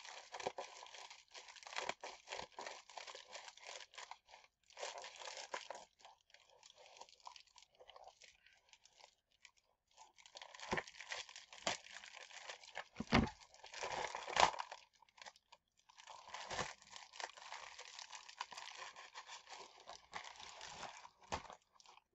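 A flat mailer package being torn and crinkled open by hand, in crackly stretches with short pauses. A few louder knocks come just past the middle.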